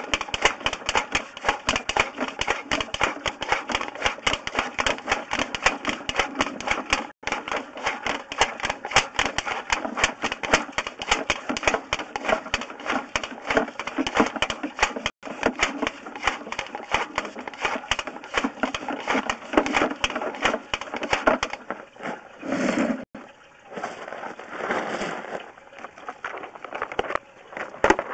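Rapid, steady clicking from a sewer inspection camera rig as the camera is pushed down the sewer line. The clicking stops about 21 seconds in, leaving softer, irregular scraping and rustling.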